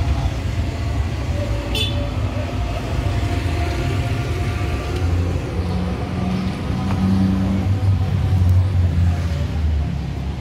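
Road traffic: motor vehicle engines running with a low rumble, one vehicle swelling louder as it passes about seven to nine seconds in. A brief click about two seconds in.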